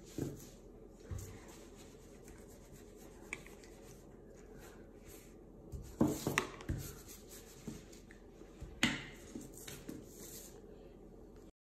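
Small clicks, taps and rubbing of a spoon in a plastic bowl and fingers pressing olive pieces onto focaccia dough on baking paper. A few louder knocks come in a cluster about six seconds in and again about nine seconds in.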